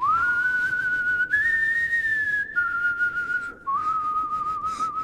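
Someone whistling a slow tune in a few long, clear notes: a rise at the start, a step up, then steps down. After a short break about three and a half seconds in, a wavering note slides down near the end.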